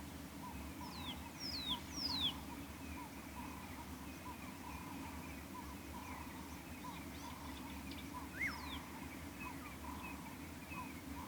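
Wild birds calling: a few sharp, high whistles that slide downward, three close together near the start and one more past the middle, over a soft low note repeated about twice a second and faint chirping.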